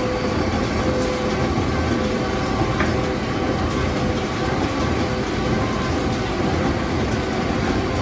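John Deere tractor and Claas Quadrant large square baler running steadily as the baler picks up a row of wood chip.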